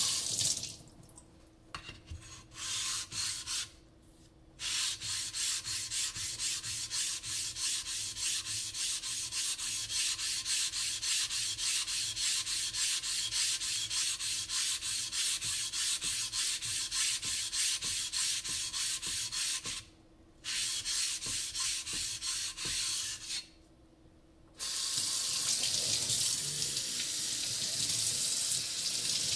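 Atoma #140 diamond plate scraped back and forth over a wet Naniwa Chosera #400 whetstone to flatten it, in long runs of rapid, even strokes with short pauses between. About 25 seconds in, a tap starts running water over the stone to rinse it.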